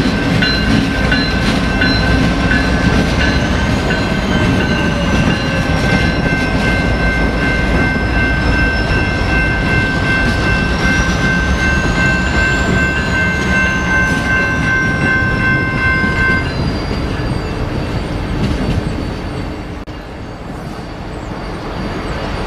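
BNSF diesel locomotives rumbling past and pulling away, their multi-chime air horn sounding one long chord that cuts off about 16 seconds in. The engine sound then fades as the units draw off.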